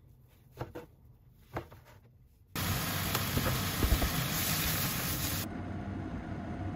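A knife cutting through a block of fried tofu gives a few soft knocks on the cutting board. Then comes a sudden loud sizzle of fried tofu and bok choy stir-frying in a pan, lasting about three seconds, which drops to a quieter steady hiss.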